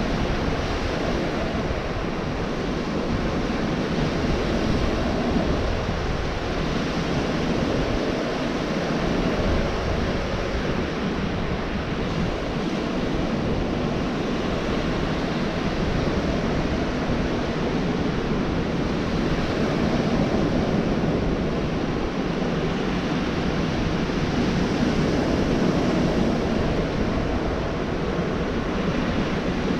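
Ocean surf washing onto a beach, a continuous rush of breaking waves that swells and eases every several seconds.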